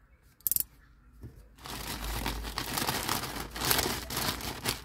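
Plastic courier parcel bag crinkling and rustling as it is handled and pulled open, setting in about a second and a half in, after a brief quick clatter of clicks near the start.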